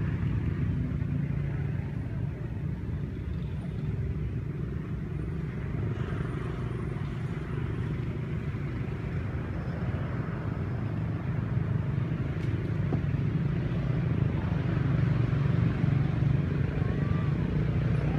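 A motor vehicle engine running steadily with a low rumble, growing somewhat louder over the last few seconds.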